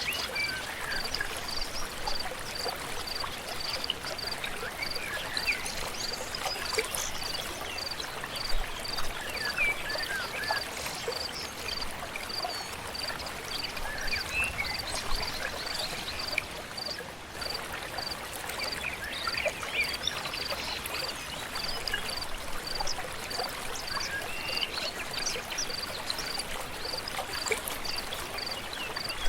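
Forest stream flowing steadily, with scattered bird chirps and a high, short note repeating evenly about one and a half times a second.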